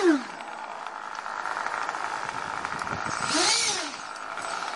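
Model airplane's nitro glow engine running with a steady high buzz: its pitch falls back to idle right at the start, and about three seconds in it is revved up once and settles back to idle.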